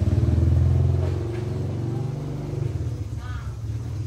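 A motor vehicle engine running close by, a low steady drone that is loudest over the first two seconds and then dies down.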